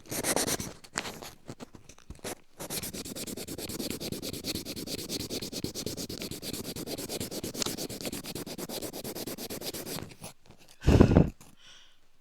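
Close, rapid scraping in quick even strokes, after a few slower, uneven ones, stopping about ten seconds in. A loud dull thump about a second later.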